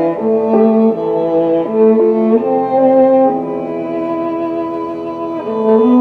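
Background music of slow, sustained bowed-string notes in changing chords.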